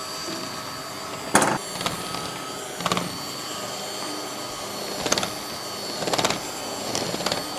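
Kitchen handling noises while brownie batter is being made: about five sharp knocks and clatters, spread out, over a steady faint hum.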